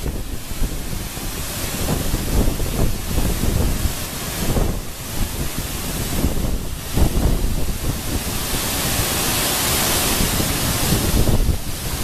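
Waterfall plunging onto rocks close by: a steady rush of falling water that grows brighter around eight seconds in, with irregular low gusts of wind buffeting the microphone.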